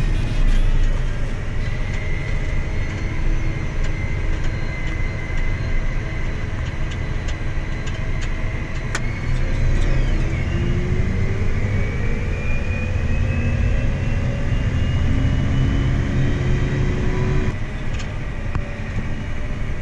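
Vehicle engine running under way, its pitch climbing steadily as it speeds up, then changing abruptly near the end.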